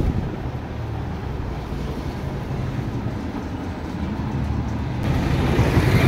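Street traffic with a motor vehicle engine running, a steady low rumble that grows louder about five seconds in. A single thump comes right at the start.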